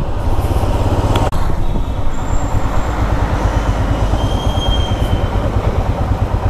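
Motorcycle engine running at low speed and ticking over, a steady, rapid low thumping under a haze of road and wind noise.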